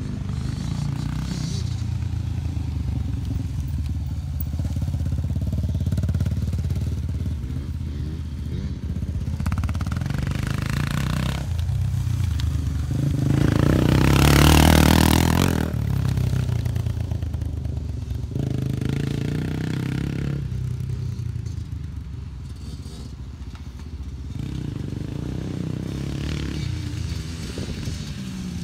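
Dirt bike engine revving up and down as it rides around the track. It is loudest about halfway through as the bike passes close by, then fades as it rides away.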